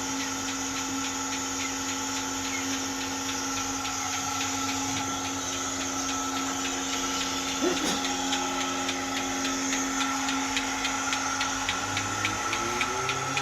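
Milking machine running: the steady hum of the vacuum pump, with regular ticks of about three a second from the pulsation starting about halfway through. A short low sound rises and falls near the end.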